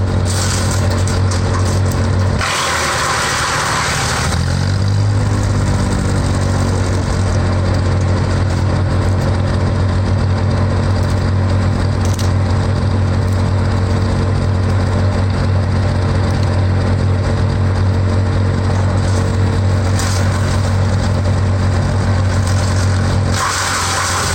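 Wood chipper's engine running at a steady speed. About two and a half seconds in, wood is fed through and chipped with a loud shredding noise; the engine bogs down under the load and then picks back up. A second, shorter bout of chipping comes near the end.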